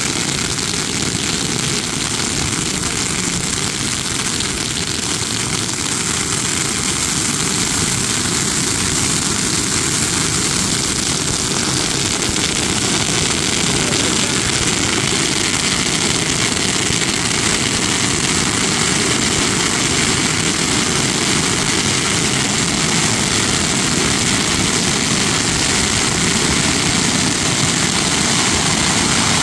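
Unicorn Fireworks 'Melting Point' ground fountains burning together in a row, giving a steady, loud rushing hiss of spraying sparks. It grows a little louder about halfway through.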